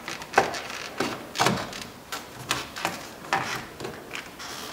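Handling noises from a car door's rubber weather strip and plastic trim being worked into place at the window frame: a few scattered knocks and rubbing sounds, about one a second.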